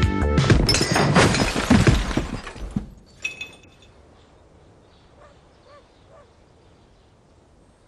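A person running full tilt into a closed glass patio door: a loud crash with rattling glass lasting about two seconds, then a single ringing clink of glass. A few faint bird chirps follow.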